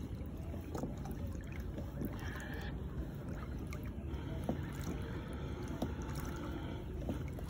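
Small splashes, drips and trickling water as a hooked fish thrashes at the surface beside a kayak's hull, over a steady low rumble of wind on the microphone.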